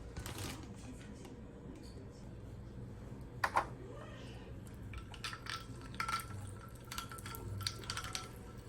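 Clinking against a drinking glass: two sharp knocks about three and a half seconds in, then a quick run of clinks over the last few seconds, with the glass ringing.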